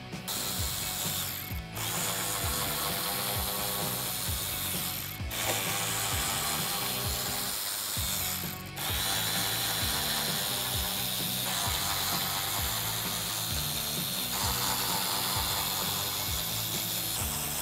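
Hand ratchet clicking as it backs out small screws along the top of a car's front bumper, over background music with a steady low beat.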